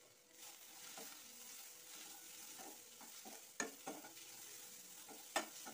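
A sweet potato, field bean and pumpkin masala fry sizzling in a nonstick kadai as a spatula stirs and scrapes it. The sizzle picks up about half a second in, and there are two sharp knocks of the spatula against the pan in the second half.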